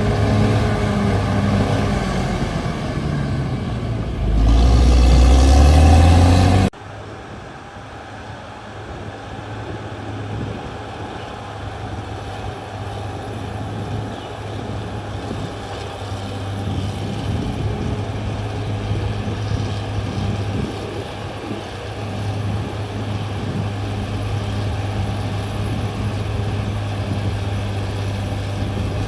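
CAT D6R XL bulldozer's diesel engine working, loud, with a low note that rises and shifts about four to six seconds in. An abrupt cut about seven seconds in leaves the engine running quieter and steady.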